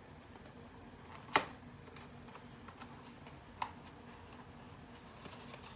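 Small cardboard box being opened by hand: light ticks and rustles of the paperboard flaps, with a sharp click about a second and a half in and a smaller one a couple of seconds later.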